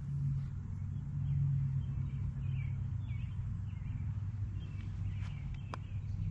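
Outdoor ambience of a steady low hum with scattered faint bird chirps. Near the end comes a single light click as a putter strikes a golf ball.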